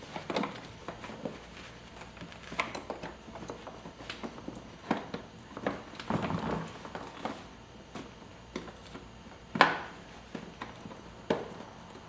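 Hands working inside a car door: scattered plastic clicks and knocks with rustling as trim pieces and the switch wiring are handled. The sharpest knock comes about ten seconds in.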